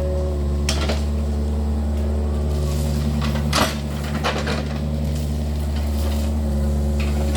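Yanmar excavator's diesel engine running steadily, with several sharp metallic knocks and clatters from the machine at work, the loudest about three and a half seconds in.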